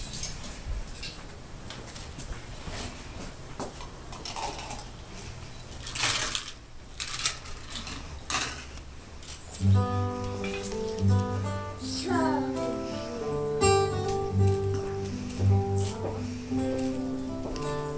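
Low murmur of a waiting crowd with a few brief rustles, then about ten seconds in, processional music on a plucked string instrument begins: picked notes over a repeating bass line.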